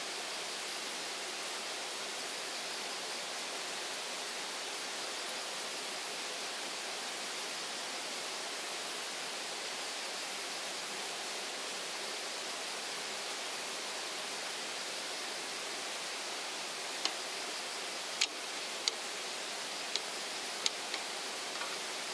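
Chicken-heart skewers sizzling on a small electric grill, a steady even hiss, with about six sharp pops in the last few seconds. A faint, very high insect chirp repeats about once a second.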